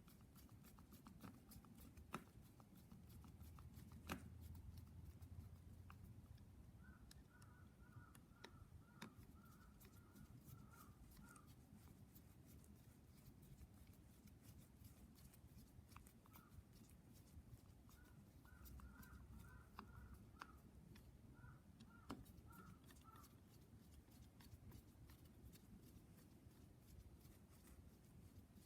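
Near silence: faint room tone with scattered light clicks and two brief runs of faint, high chirping.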